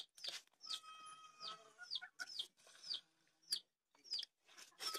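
Chickens clucking and calling, a string of short repeated calls with high falling notes.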